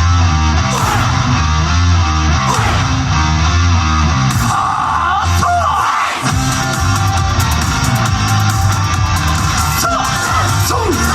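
Loud recorded rock music with electric guitar over a heavy bass line. The bass drops out briefly about six seconds in, then comes back.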